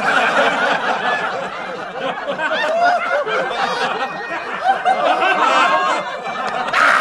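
Many people laughing and chuckling together, the voices overlapping: a laugh track following the punchline of a joke.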